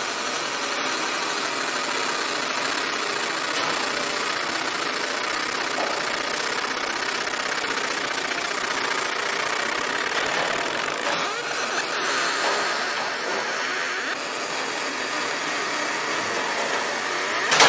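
Fiber laser marker burning a pattern into an MDF bowl: a steady, even hiss as the beam scorches the wood.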